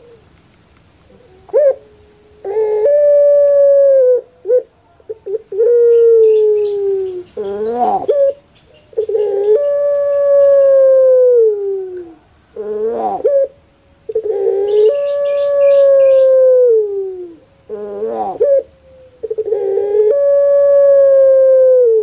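Barbary dove (puter pelung, Streptopelia risoria) cooing over and over. Each call is a short rolling, wavering note followed by a long drawn-out coo that dips in pitch at its end, about five times.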